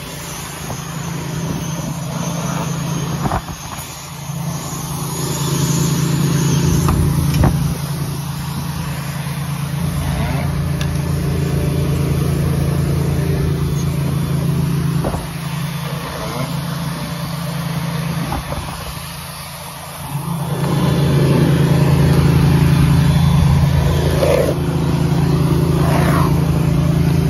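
Steady mechanical drone of running roofing equipment, engine-like, with a pulsing low end. It dips in level a few times and runs louder for the last several seconds, with a few short knocks scattered through.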